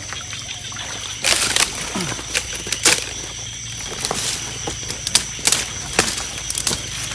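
Shallow paddy water splashing and sloshing in a string of short, sharp bursts. The biggest burst is about a second and a half in, with another near three seconds.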